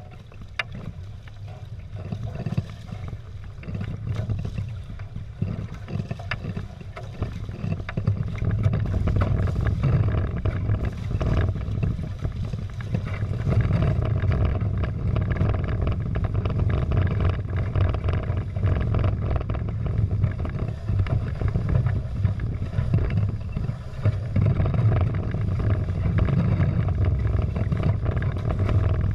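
Water rushing and slapping against the hulls of a Prindle 16 sailing catamaran under way, under a low, deep rumble of wind on the camera. It builds over the first several seconds and then holds steady.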